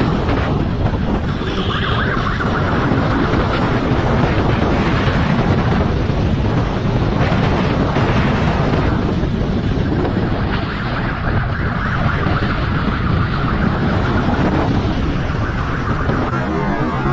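Motorcycle engine running at speed, under heavy wind noise buffeting the microphone.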